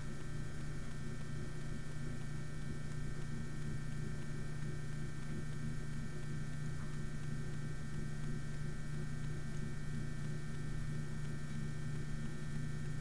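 Steady low electrical hum with a constant background hiss, unchanging throughout; no distinct handling sounds stand out.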